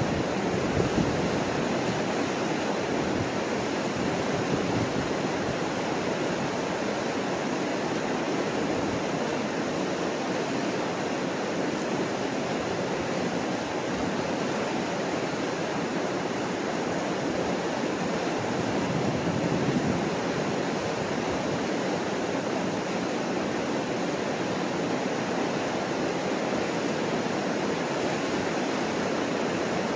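Mississippi River rapids rushing steadily as white water pours over a rock weir, a continuous even roar of churning water.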